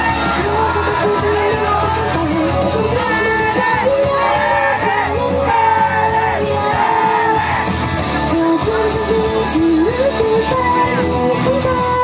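Upbeat pop song playing loudly over a PA, with a female idol group singing live into handheld microphones and shouts from the crowd over the music.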